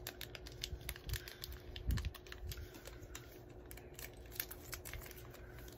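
Light, irregular clicks and crinkles of a small mystery-pin blind bag being handled and opened by hand, with one duller knock about two seconds in.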